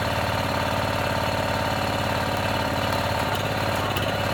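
Engine of a hydraulic pier-jacking machine running steadily, driving the jacks that lift settled brick steps back into place.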